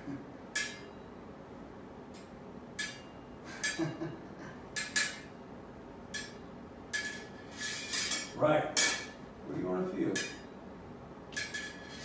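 Steel smallsword blades clinking and scraping together in about a dozen short, irregular metallic taps, each with a brief ring, as one blade engages the other. The contacts come closer together in the second half.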